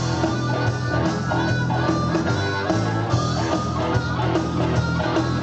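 Rock band playing an instrumental passage between sung sections: guitar over bass and drums with a steady beat.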